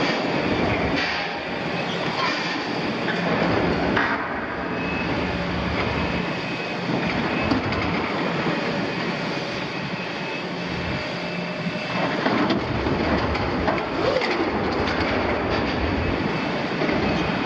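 Liebherr 974 long-front demolition excavator working its tool against the steel shell of a double-walled oil tank: a continuous din of metal grinding, creaking and squealing over the steady running of the machine's diesel engine.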